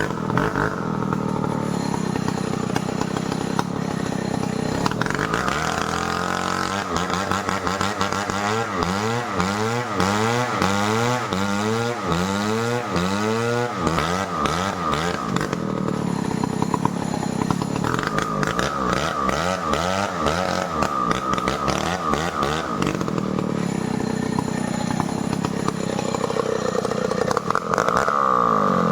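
Stihl 070 two-stroke chainsaw running while cutting merbau timber, its engine pitch dipping and rising again and again as the load on the chain changes.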